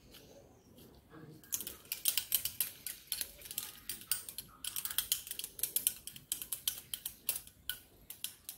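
Quick, irregular soft taps and clicks of a lump of stiff dough being rolled between the palms into a ball, starting about a second and a half in.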